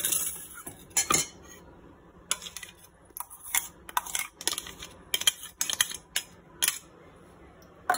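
Metal spoon and knife clinking and scraping against a container and a plastic lid while scraping off hummus paste. A run of sharp taps and clinks, thickest from about two to seven seconds in.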